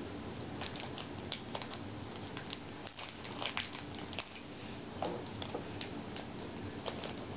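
A trading card booster pack being handled and opened: scattered small crackles and clicks of the wrapper and cards.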